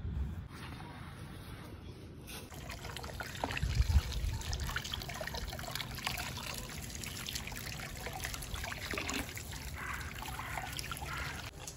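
Water running from an outdoor tap and trickling over vegetables being rinsed, starting about two and a half seconds in. There is a dull bump about four seconds in.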